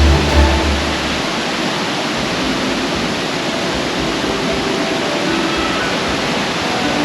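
Waterfall: a steady, loud rush of falling water. A low musical bass note carries on for about the first second and then stops.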